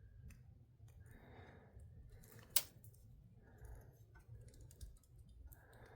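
Faint clicks and handling noise from working on a plastic headlight wiring connector, with one sharp click about two and a half seconds in.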